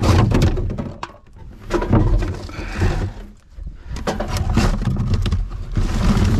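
Rigid plastic clamshell packaging and cardboard boxes rustling and clattering as gloved hands rummage through them in a wheelie bin, in three uneven bursts with short lulls between.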